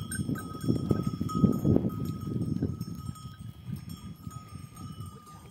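Goat herd on the move: bells ringing steadily over a dense low rustle of many animals, loudest in the first half.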